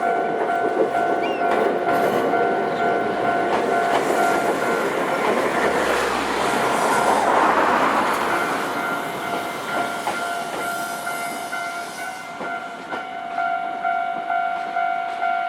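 Japanese railway level-crossing warning bell ringing in a steady, fast repeating two-tone ding while a Nankai Kada Line train runs over the crossing. The wheels clatter on the rail joints, loudest about halfway through and fading after. The bell stops at the very end.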